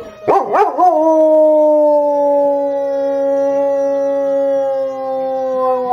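German shepherd dog howling: a short wavering rise about half a second in, then one long howl that slowly falls in pitch.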